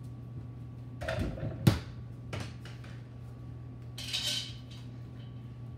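Two-handed slam dunk on a mini over-the-door basketball hoop: a sharp clattering bang about a second and a half in, as the rim and backboard rattle against the door. A few lighter knocks follow, then a brief rattle near the end.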